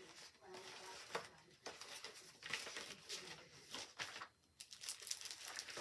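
Faint rustling and crinkling of craft-paper packaging being handled, with scattered light clicks and taps.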